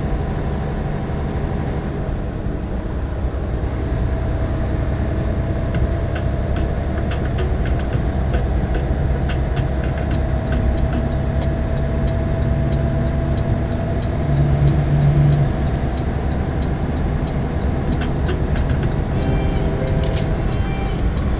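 Semi truck cruising on the highway, heard inside the cab: a steady diesel engine drone with road and tyre noise. Two short runs of light clicking come partway through and near the end.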